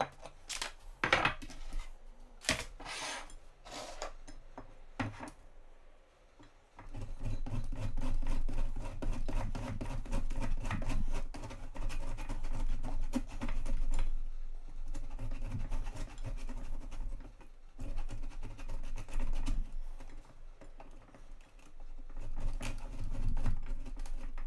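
Parmesan cheese being grated on a stainless steel box grater standing on a plate: fast, steady rasping strokes with a low rumble from the grater against the plate, broken by a few short pauses. It starts about seven seconds in, after some scattered knocks.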